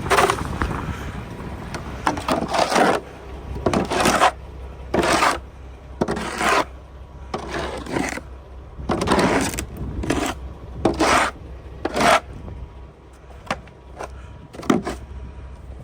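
Snow shovel scraping snow off pavement: a dozen or so separate scrapes at an uneven pace, about one every second or so.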